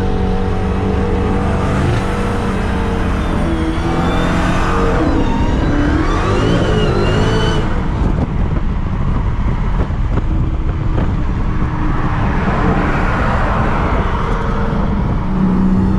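Dodge Charger SRT Hellcat's supercharged 6.2-litre V8, heard from inside the car at high speed. It runs steadily, then revs rise in pitch for a few seconds from about four seconds in before levelling off, under a steady rush of road noise.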